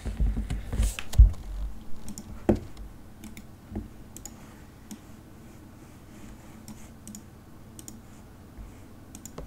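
Computer mouse clicks and desk handling noises: a few low thumps in the first second and a half, sharper clicks about two and a half and almost four seconds in, then scattered faint clicks.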